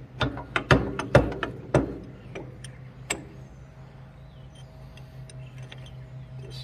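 Metal clicks and knocks from a Ford 8N tractor's dismantled starter being handled, its armature and Bendix drive moving against the housing. A quick run of sharp knocks comes in the first two seconds and one more about three seconds in, then only faint ticks.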